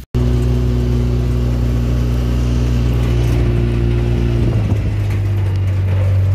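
An engine running steadily at a low, even pitch, with a slight drop in pitch about four and a half seconds in.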